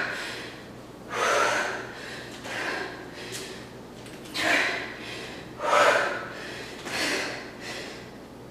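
A woman breathing hard from exertion, with five forceful, noisy exhalations about every second and a half.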